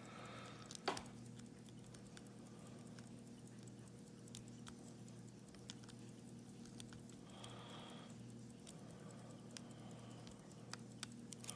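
Faint, scattered clicks of a lock pick and tension wrench working the standard pin tumblers in a Schlage padlock's keyway, with one sharper click about a second in, over a steady low hum.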